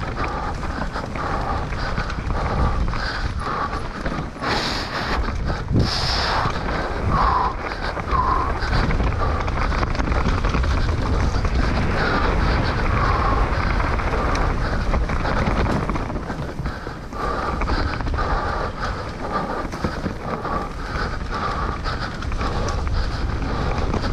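Mountain bike riding down a dirt trail, with wind buffeting the microphone over a steady rumble and frequent short knocks and rattles.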